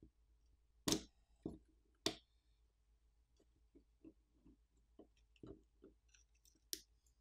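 Sparse clicks and light taps of small metal phone parts being handled as an aluminium plate and its wiring are worked loose. Two sharper clicks come about one and two seconds in, the second with a brief metallic ring, followed by a scatter of faint ticks.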